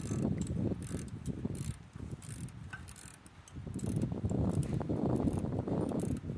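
Ratchet tool clicking in quick runs, with a short pause about two seconds in.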